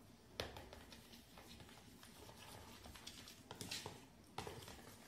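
Faint stirring of a metal spoon in water in a plastic bowl to dissolve fresh yeast, with light taps and scrapes of the spoon against the bowl. Sharper clicks come about half a second in and again in a cluster around four seconds in.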